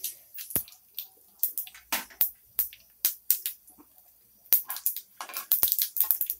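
Mustard and cumin seeds crackling in hot oil, with irregular sharp pops that come thicker about four and a half seconds in as the mustard seeds start to splutter: the oil is hot enough for the tempering.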